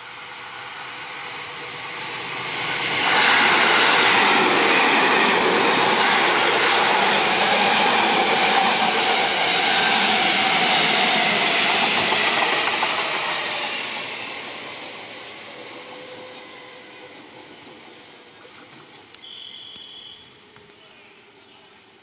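Seibu 6000 series electric train (set 6102F) running past close by: the sound of its wheels on the rails builds about three seconds in, stays loud for about ten seconds with a faint whine falling in pitch, then fades away.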